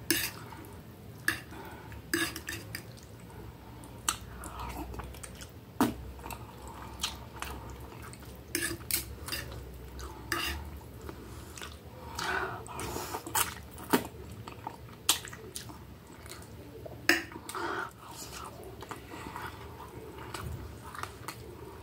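Close-up eating sounds: a fork and knife clinking and scraping on a plate in irregular sharp clicks as spaghetti and a hamburger patty are cut and picked up, mixed with chewing.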